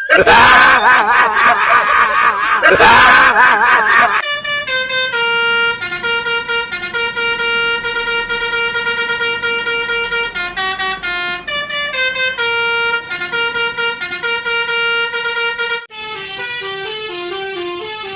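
A telolet-style multi-note musical bus horn playing. It starts with a loud wavering, siren-like sound for about four seconds, then plays a tune of held notes stepping between pitches, with a quicker run of notes near the end.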